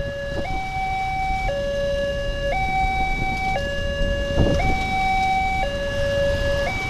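Railway level-crossing warning alarm sounding a two-tone signal, switching between a higher and a lower tone about once a second, warning of an approaching train as the barrier comes down. Road traffic rumbles underneath, with a brief thud about four and a half seconds in.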